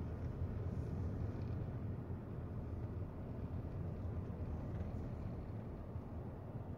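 Steady low rumble of a car's engine and tyres, heard from inside the cabin as it cruises slowly.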